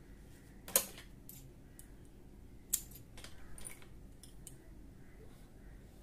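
Two sharp clicks about two seconds apart, then a patter of lighter ticks, from small tools and fabric being handled on a wooden sewing table.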